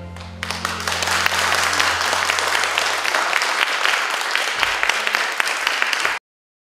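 Audience clapping, starting about half a second in as the music's last chord fades away underneath. The applause cuts off suddenly near the end.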